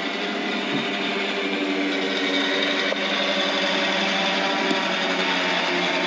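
Electric power-lift motor of a homemade bandsaw sawmill running steadily as it raises the saw head, a constant-pitched motor whine that gets slightly louder about halfway through.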